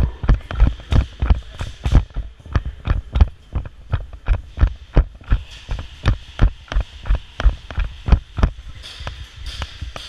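Running footsteps thudding into a body-worn camera, about three steps a second and fairly even, each with a sharp click on top of a deep thump.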